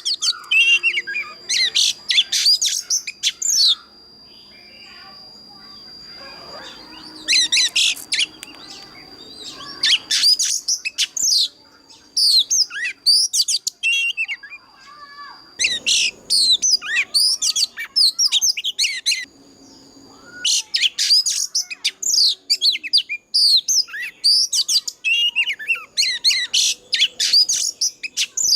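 Oriental magpie-robin singing its full wild-type song: runs of rapid, varied whistles and chirps lasting several seconds, broken by short pauses. A thin steady high tone sounds under much of it.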